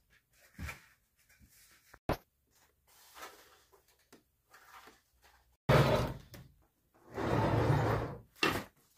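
Household handling noises: a sharp click about two seconds in, a sudden loud knock just before six seconds that fades out, then about a second of scraping, rustling noise and a shorter burst after it.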